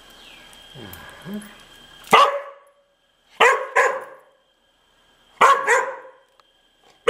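A dog barking: a single bark about two seconds in, then two quick pairs of barks a couple of seconds apart, and one more at the very end.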